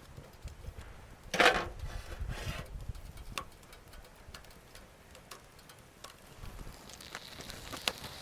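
Campfire crackling: scattered sharp ticks and pops of burning wood, with a louder burst of crackle and rustle about a second and a half in.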